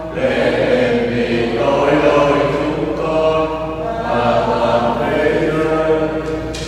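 Slow sacred vocal music: a chant-like hymn sung in long held notes that change every second or two.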